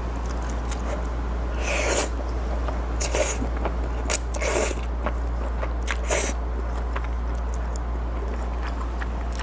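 A person slurping ribbons of creamy pasta in several short slurps, with chewing and faint clicks of a fork and spoon, over a steady low hum.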